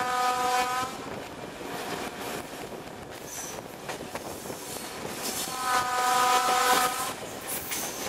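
Horn of a Czech class 749 'Bardotka' diesel locomotive hauling the train: a blast ending about a second in, then a second blast about five and a half seconds in lasting about a second and a half. Between the blasts the coaches run on with a steady rumble and wheel clatter.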